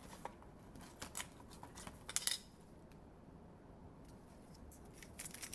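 Light plastic clicks and taps from a 3x3 speed cube being handled: scattered clicks, the loudest a close double click about two seconds in, then a quick run of clicks near the end.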